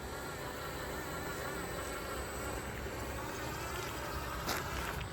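Electric motor and drivetrain of an RC truck whining as it drives, the pitch wavering up and down with throttle. There is a brief click about four and a half seconds in.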